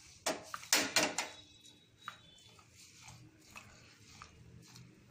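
Hand swishing fenugreek leaves through water in a plastic bowl to wash them: a few louder splashy swishes in the first second or so, then quieter stirring.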